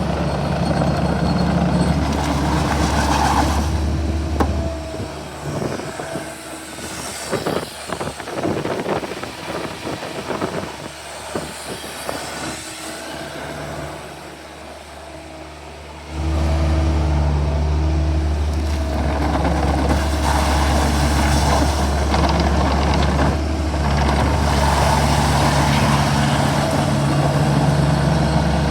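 Volvo ECR50D compact excavator's diesel engine running steadily. After about five seconds the engine sound drops away for roughly ten seconds, leaving scattered clanks and knocks, then it comes back loud and steady all at once.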